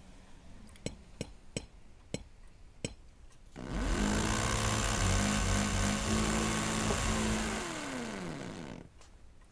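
A few sharp clicks, then about three and a half seconds in an electric rotary hammer starts up and runs loudly for about five seconds, its motor winding down near the end.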